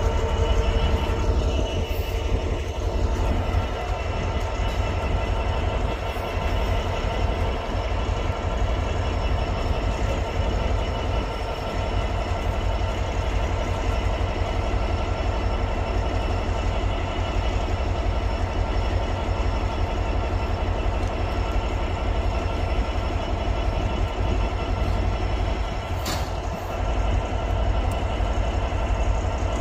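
Class 66 diesel-electric freight locomotive, its EMD two-stroke V12 engine running with a steady low drone as it hauls a freight train slowly through the station. A brief sharp noise comes near the end.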